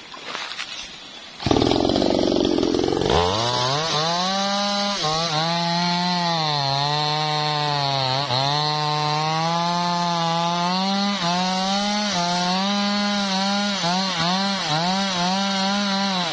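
Two-stroke chainsaw cutting through a felled teak log. It comes in suddenly about a second and a half in and revs up a second or so later. The engine note then dips and recovers as the chain bites under load, wavering quickly near the end as the cut goes through.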